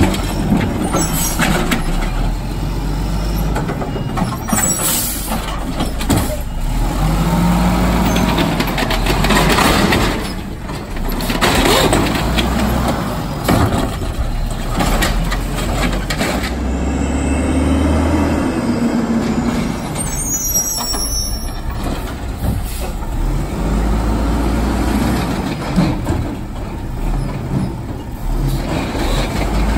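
Automated side-loader garbage truck working at the curb: the diesel engine runs steadily while the hydraulic arm grips, lifts, dumps and sets down carts with knocks and clatter, and air brakes hiss now and then.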